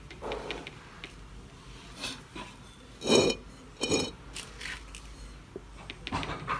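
Paintbrush knocking against a hard paint container, with two ringing clinks about three and four seconds in among softer small scrapes and taps.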